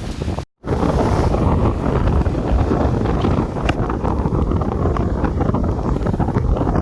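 Wind buffeting the microphone: a loud, steady rumble. It cuts out completely for a moment about half a second in.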